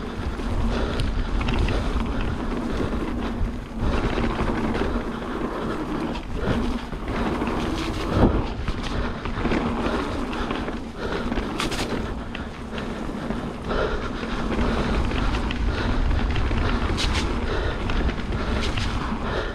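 Wind rushing over the microphone of a mountain bike descending a trail, with the steady rumble of the ride and frequent clicks and rattles from the bike. There is a sharp knock about eight seconds in.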